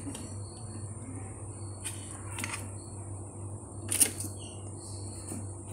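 Metal tongs clicking a few times while handling grilled pork neck, the loudest click about four seconds in, over a steady low hum.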